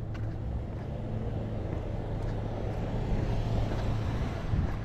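Outdoor street ambience: a steady low rumble with a wash of noise that swells about three to four seconds in.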